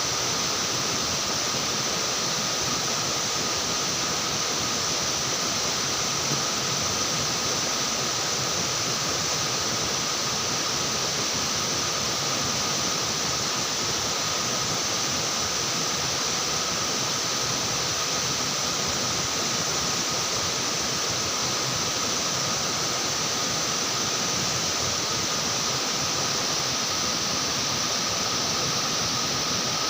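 Steady rushing of river water, an even noise that doesn't change, with a constant high hiss on top.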